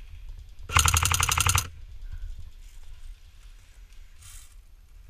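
Airsoft PPSh replica with a drum magazine firing one full-auto burst of about a second, a fast, even rattle of shots.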